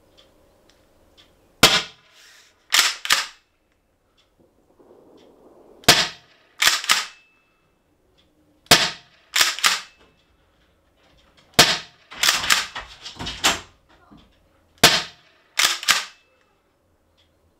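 Stock 7.5-joule Umarex HDX 68 CO2 pump-action launcher firing rubber balls, about five shots roughly three seconds apart. Each sharp crack is followed about a second later by two quick clacks as the pump is racked. The shots chronograph at around 5 joules.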